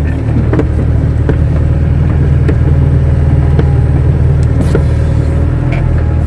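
Kato crawler excavator's diesel engine running steadily under load, heard from inside the cab, with a few light knocks from the machine's work.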